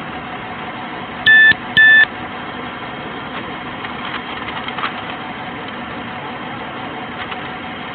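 Two short electronic beeps, half a second apart, a little over a second in, over the steady hum of an idling vehicle.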